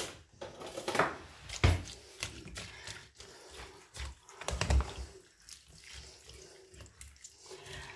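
A utensil stirring chopped raw white cabbage, carrot and leek in a stainless steel pot with a little broth: irregular rustling of wet leaves, with a few knocks against the pot.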